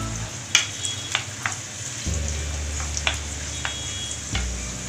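Chopped onions sizzling in hot oil in a non-stick pan, stirred with a wooden spoon that knocks and scrapes against the pan several times.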